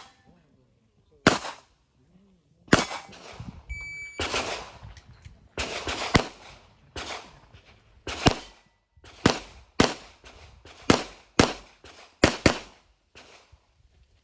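Glock pistol shots fired in a string, about fifteen sharp cracks at irregular intervals, some in quick pairs, each with a short echo. A short electronic beep sounds about four seconds in.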